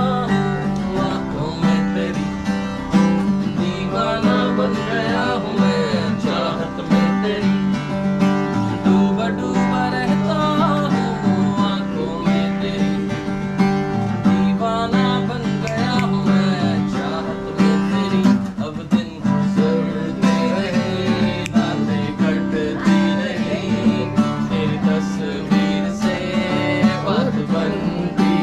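Acoustic guitar strummed steadily in chords, with a man singing along.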